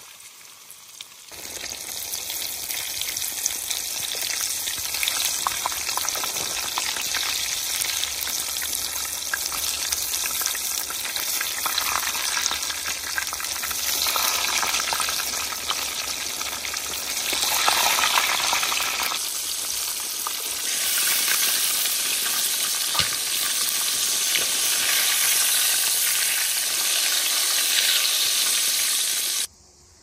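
Breaded chicken breasts deep-frying in hot oil in a skillet over a campfire: a loud, steady sizzle with fine crackling and spattering. It jumps up about a second in and cuts off suddenly near the end.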